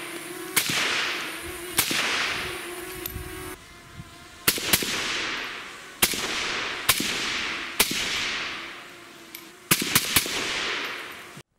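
An AKMS rifle firing surplus 7.62×39 mm rounds through a steel Gomander muzzle moderator. About ten single shots come at irregular intervals, with a quick run of three near the end, and each trails off in a long echo. The moderated report is somewhat louder than a rimfire rifle.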